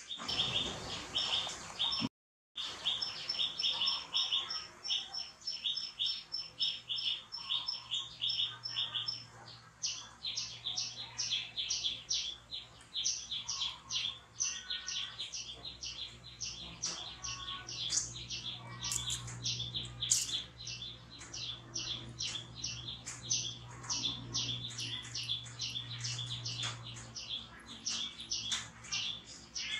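A small bird chirping rapidly and steadily, about three to four short high chirps a second, without a break.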